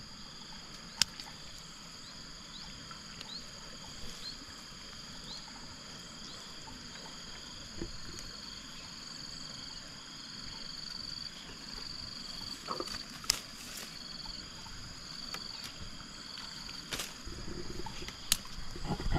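A steady high-pitched insect chorus that pulses for a while in the second half. A few sharp snaps and rustles come through as plant stems are pulled and cut at the water's edge.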